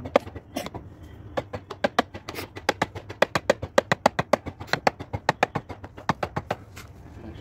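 Hammer tapping rapidly on a plastic pipe fitting, about five sharp strikes a second, driving the coupler onto an HDPE water pipe. The tapping starts about a second in and stops shortly before the end.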